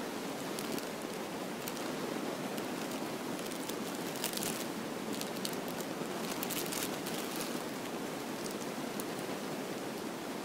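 Steady hiss with scattered light crinkling or rustling clicks, the thickest cluster about halfway through.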